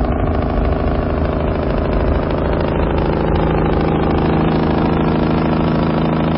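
Big-rig diesel truck engine running steadily: a loud, deep rumble with a droning tone that eases slightly lower in pitch.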